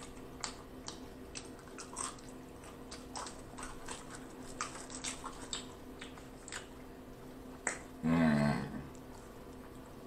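Soft, scattered mouth clicks and smacks of someone eating close to the microphone. About eight seconds in there is a short hummed vocal sound.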